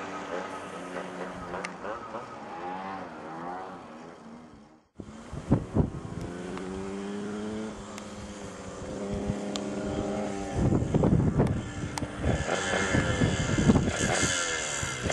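Yamaha YZ125-topped 125 cc two-stroke dirt-bike engine on an RD125 expansion chamber, revving, its pitch rising and falling as the throttle is worked. It cuts off abruptly about five seconds in, then comes back at a steadier pitch and gets louder over the last few seconds.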